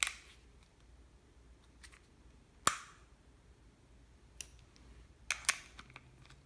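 Sharp mechanical clicks from handling a custom airsoft pistol built on a KWA M9: a click at the start, the loudest sharp snap a little under three seconds in, and a few lighter clicks near the end.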